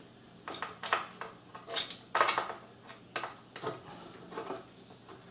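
About half a dozen sharp metallic clicks and knocks from tools and screws on the metal chassis of an Allen & Heath Xone:43 DJ mixer as its rear is unscrewed and taken apart.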